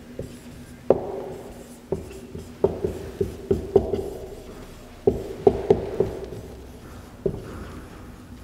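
Felt-tip marker writing on a whiteboard: an irregular run of sharp taps and clicks as the tip strikes and drags across the board, each with a short ring, thickest in the middle and thinning out near the end.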